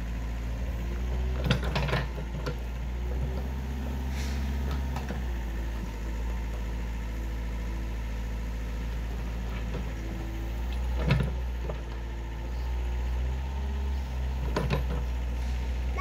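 Mini excavator's diesel engine running steadily, with a few sharp knocks, the loudest about a second and a half in and about eleven seconds in.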